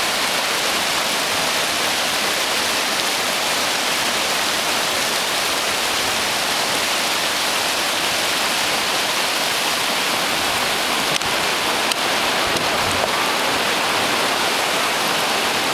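Whitewater river rapids rushing steadily, a dense, unbroken wash of churning water.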